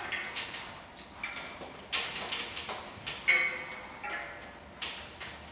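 Electric bike's wiring harness being pulled and worked through the frame tube: a string of irregular light clicks and rattles as the cable and its plugs knock against the frame, with the harness hanging up inside the tube.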